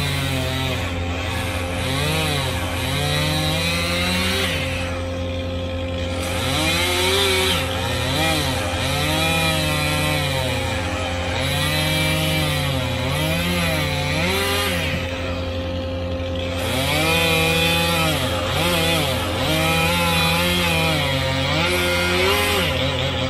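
Stihl chainsaw cutting up a downed tree for firewood, its engine pitch rising and falling again and again as it revs and bogs down in the wood, easing off briefly twice. A steady low hum runs underneath.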